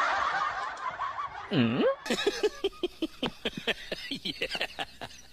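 Human laughter: a jumble of laughing at first, then a quick run of short, even chuckles through the last few seconds.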